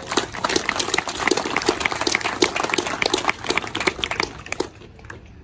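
A crowd applauding: a dense patter of many hand claps that dies away near the end.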